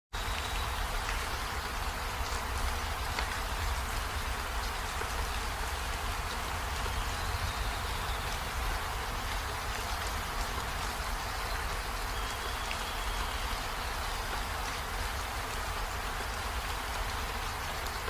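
Steady hiss of falling water, even and unbroken, with a low rumble underneath and a few faint, short high tones here and there.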